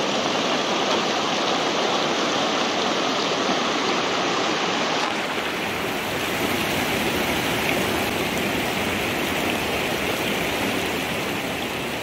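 A shallow mountain river rushes over rocks in whitewater rapids, a steady, loud rush of water. The sound turns slightly brighter about five seconds in.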